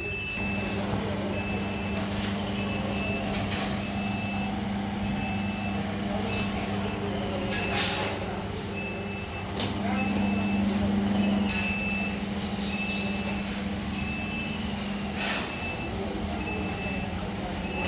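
Compressor of a PSA oxygen generator plant running with a steady hum, with a short high electronic beep repeating throughout and several brief bursts of air hiss.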